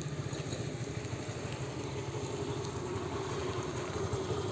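An engine running steadily at idle: a low drone with a fast, even pulse.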